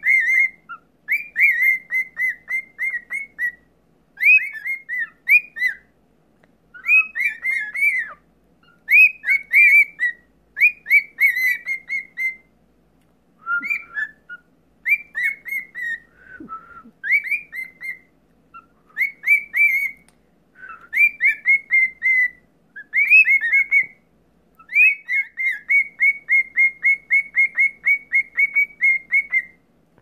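Male cockatiels singing: short whistled phrases with pauses between them, many breaking into quick runs of short repeated notes, the longest run near the end.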